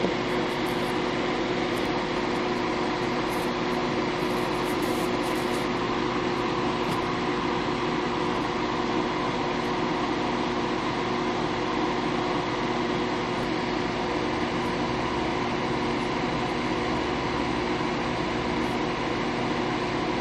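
A steady mechanical hum, with several constant tones over an even noise, unchanging in level.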